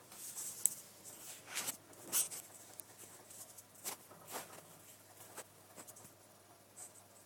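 Hoover 1100 De Luxe washing machine in its final rinse: irregular soft swishes and splashes as water and laundry slosh in the drum, the loudest about two seconds in.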